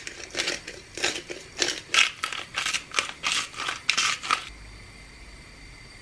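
Pepper mill being twisted over the pot, grinding in quick crunching strokes about three or four a second, stopping about four and a half seconds in.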